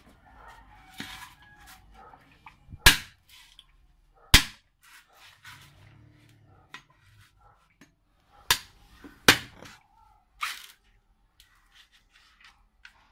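A large knife striking a husked mature coconut to crack its shell open: five sharp knocks over about eight seconds, the first two the loudest, with light handling knocks between.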